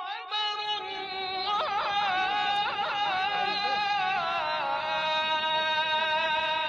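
A solo voice singing a slow chant, holding long notes with quick ornamental turns in the middle and stepping down in pitch a little past halfway, over low crowd noise.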